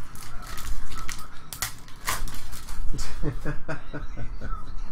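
Foil trading-card pack wrapper crinkling and being torn open by hand, with several short sharp rips in the first half. A brief murmur of a voice follows about three seconds in.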